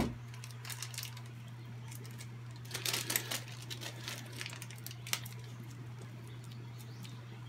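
Small clicks and crinkling of a shrink-wrapped chain master link package being handled and picked at: a cluster of clicks about three seconds in and a single click about five seconds in, over a steady low hum.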